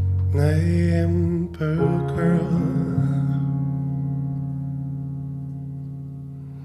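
Slow song playing: a short sung phrase with vibrato over a held chord in the first half, then the chord rings on and fades gradually.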